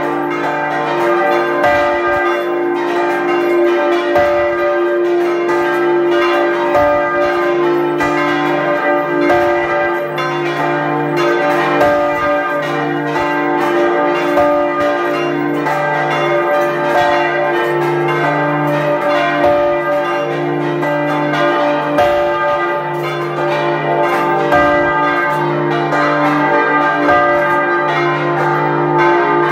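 Full peal of several swinging church bells heard up close in the belfry. Their clapper strokes fall irregularly and overlap, while the bells' tones ring on without a break.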